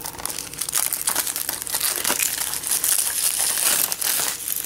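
Packaging on a Blu-ray case crinkling and rustling as it is handled and opened: a dense, scratchy rustle made of many small crackles.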